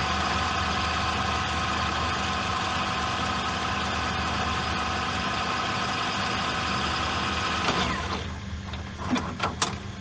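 An engine idling steadily. It drops away about eight seconds in to a quieter hum, and a few short, sharp sounds follow near the end.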